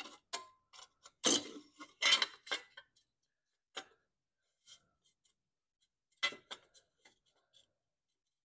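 Light metal clicks and clinks of a sheet-metal cover being handled and pressed into place against a small lawn mower engine's cylinder. There are scattered taps, with a busy run between about one and three seconds in and another small cluster about six seconds in.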